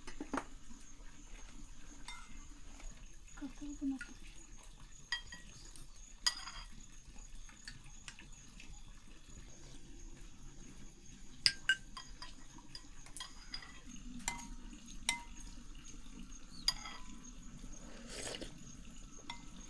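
Dishes and cutlery clinking and knocking now and then, with a sharp pair of clinks about eleven and a half seconds in.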